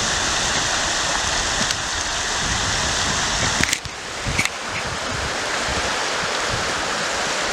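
Steady rush of a fast river running over shallow rapids, with a couple of short knocks a little past halfway.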